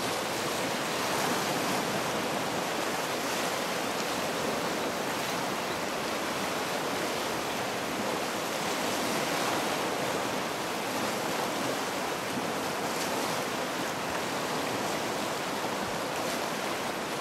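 River rapids rushing over rocks, a steady even noise without a break.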